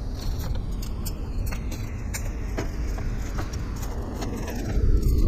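A vehicle running with a steady low rumble, over many light clicks and rattles, and a louder low surge near the end.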